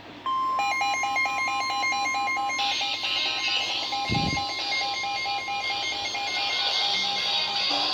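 Emergency alert tones from a radio: a steady, single high warning tone, the kind NOAA Weather Radio sends before a warning, with a fast, evenly pulsing electronic beep over it. Hiss joins about two and a half seconds in, and a short low thump comes about four seconds in.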